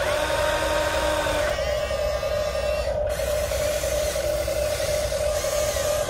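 Electric motors and gearboxes of a Huina 1593 RC excavator whining steadily as it works its boom and bucket, with a higher whine coming in over the first second and a half and again near the end.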